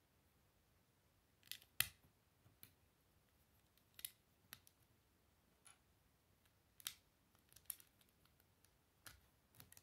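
Plastic Lego bricks clicking as they are handled and pressed together: a dozen or so quiet, sharp clicks at irregular intervals, the loudest about two seconds in.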